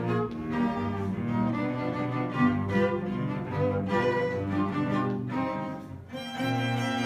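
Live instrumental music from a quintet, with held notes over a low bass line; the playing thins briefly about six seconds in, then picks up again.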